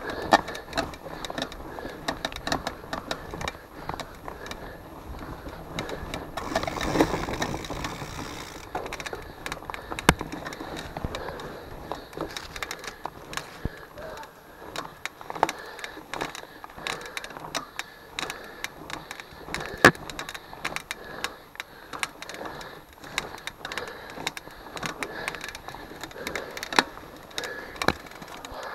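Mountain bike rolling along a dirt forest trail: knobby tyres running over soil and leaf litter, with frequent sharp clicks and knocks as the bike and camera rattle over bumps and roots. A louder stretch of rushing noise comes about a quarter of the way in.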